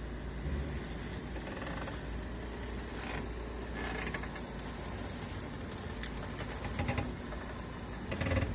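Creaking from an Audi A6 C7's steering rack: several short, irregular creaks over a steady low hum from the car.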